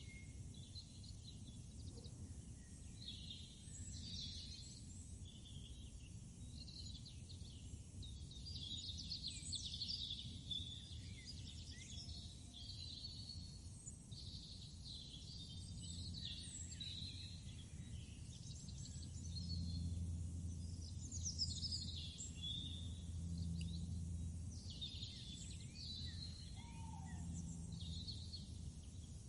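Many small birds chirping and calling over a low, steady outdoor rumble, with a low hum that swells in the second half.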